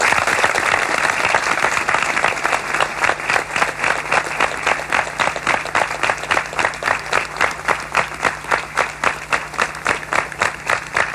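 Crowd applauding: dense clapping that settles into rhythmic unison clapping, about three to four claps a second, fading slightly near the end.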